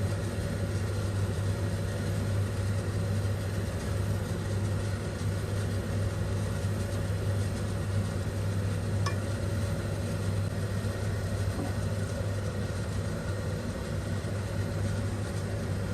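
Steady low hum and rumble of kitchen equipment running, with one light click about nine seconds in.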